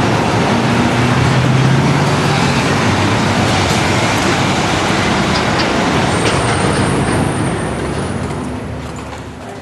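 Loud city street traffic noise with a vehicle engine drone in it, fading away near the end.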